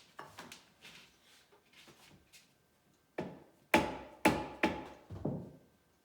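Hammer knocking on wooden cabinet parts: a few light taps, then a run of four sharp strikes about half a second apart a little past halfway.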